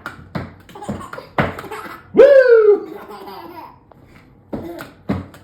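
A baby laughing in short bursts, with a louder, drawn-out high squeal of a laugh about two seconds in.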